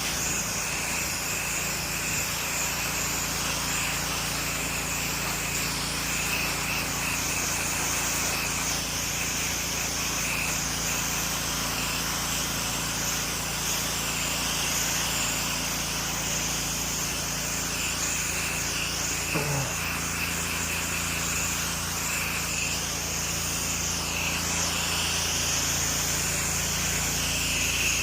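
Pressure washer running steadily: a motor hum under the constant hiss of its water spray as it rinses siding to cool it and keep it wet.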